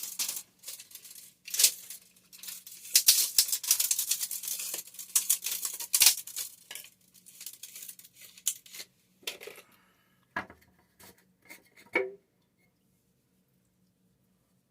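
Rustling and scraping of PVC pipe and couplers being handled and fitted into place, in dense irregular bursts for about nine seconds, then a few separate knocks and clicks.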